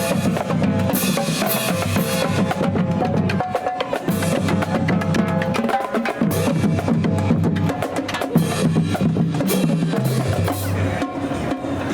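High school marching band playing, with snare and bass drums striking steadily under held notes from the band.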